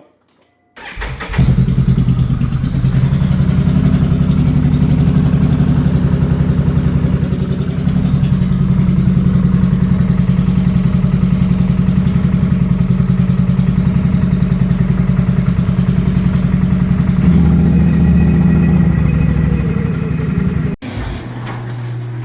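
2022 Can-Am Renegade 1000 XMR's V-twin engine starting about a second in and running with an even pulsing beat, then shut off suddenly near the end. The engine is misfiring on its front cylinder, where a failing spark plug boot arcs through to the engine block.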